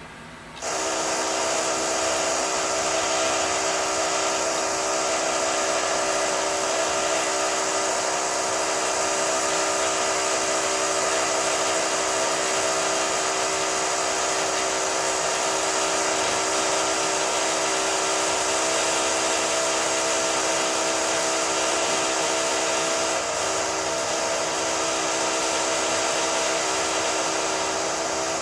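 High-pitched power drill that starts suddenly about a second in and then runs at a steady, continuous whine.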